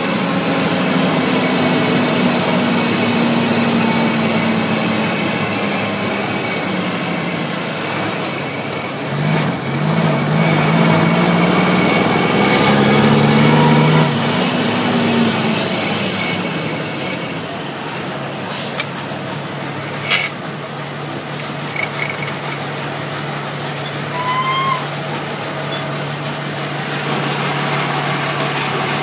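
Cummins L10 diesel in an International truck heard from inside the cab: the engine note falls, rises and drops twice as the revs change through the gears, then settles to a steady low idle for the second half. A brief hiss a little past halfway and scattered clicks and rattles.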